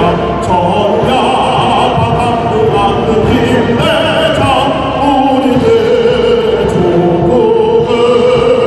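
A male popera singer sings through a PA in an operatic style, accompanied by a military band, with long held notes in the second half.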